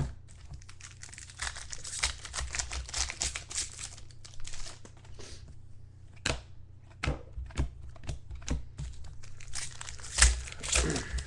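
Foil trading-card pack wrapper crinkling and tearing as it is opened, with the light clicks of cards being handled and one louder knock about ten seconds in.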